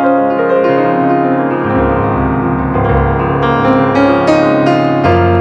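Background music played on piano or electric piano, a melody over low bass notes.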